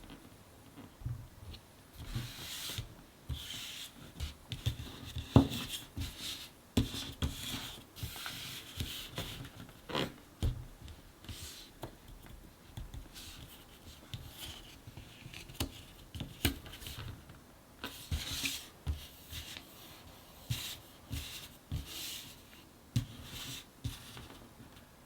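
Ravensburger My First Puzzles cardboard jigsaw pieces being handled on a table: pieces sliding and scraping, with scattered light taps and clicks as they are set down and pressed into place.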